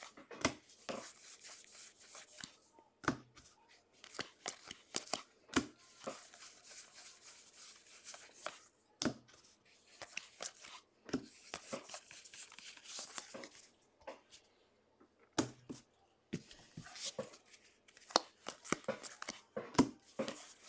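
A stack of baseball cards being flipped through by hand: cards sliding and snapping against each other in quick, irregular clicks and rustles, with a short pause about two-thirds of the way through.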